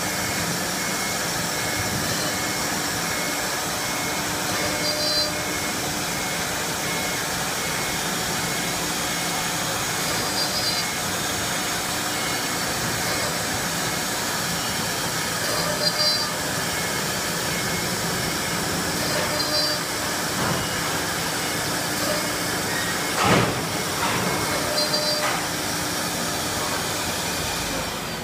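Four-spindle wood CNC router running, one spindle cutting a board: a steady whine and hiss of spindle and cutter, with short high blips recurring every five seconds or so. One sharp knock stands out about 23 seconds in.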